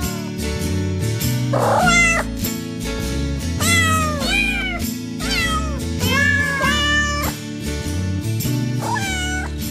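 Domestic cat meowing several times over background music with a steady beat.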